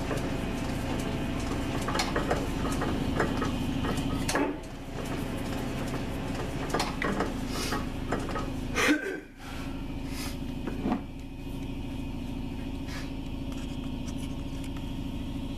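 South Bend lathe running with a steady hum, with scattered metallic clinks and knocks from the tooling and workpiece; a sharper knock about nine seconds in is followed by a brief dip in the hum.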